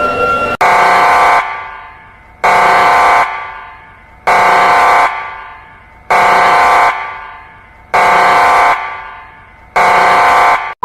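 Horn-type warning siren sounding six short, even blasts about two seconds apart, each at one steady pitch and echoing away after it cuts off.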